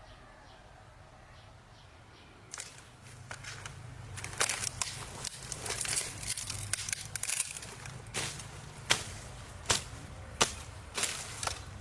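Rustling with a series of sharp clicks that start a few seconds in. Near the end the clicks come at an even beat, about one every 0.7 s.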